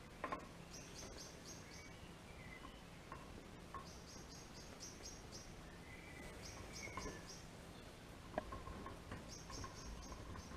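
Faint high-pitched chirping in short rapid trains, repeating every few seconds, with a few light clicks as the second motorbike mirror is fitted.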